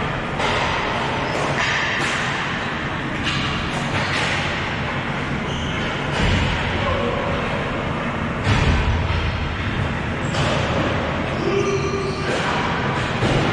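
Ball hockey game in play: irregular sharp knocks of sticks and the ball against the boards and floor, over players' shouts and calls.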